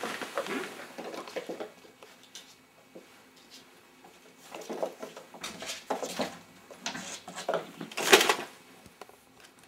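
Two kittens play-fighting: scuffling, paws scrabbling and bumping on a shaggy rug and wooden floor in irregular bursts, with the loudest rustle about eight seconds in.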